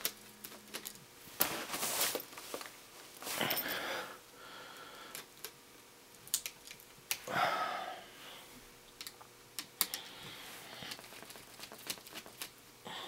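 Scattered small clicks and taps, with three short scrapes, from a screwdriver and hands working on a laptop's screen panel and its thin metal and plastic parts.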